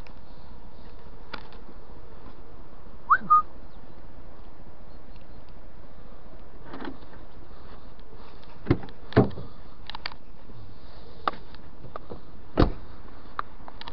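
Scattered clicks and knocks from a car's doors being handled and opened, over a steady hiss. There is a short high chirp about three seconds in.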